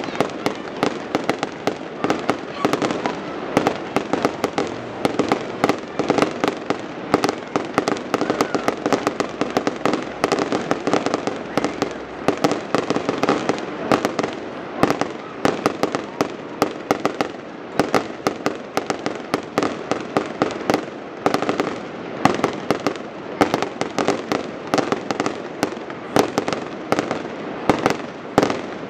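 A fireworks display going off without pause: several sharp bangs and crackling pops a second over a steady hiss.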